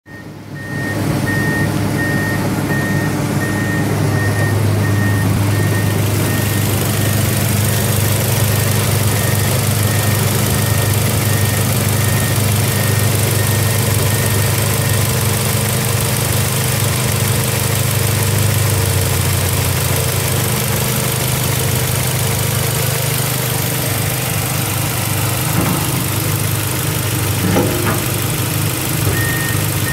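2005 Ford Escape's 2.3-litre DOHC 16-valve four-cylinder petrol engine idling steadily under an open bonnet. A faint regular beeping sounds over it in the first few seconds.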